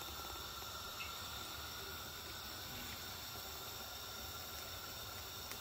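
Faint steady hiss from a large pan of soup simmering on a gas hob, with a faint tick about a second in.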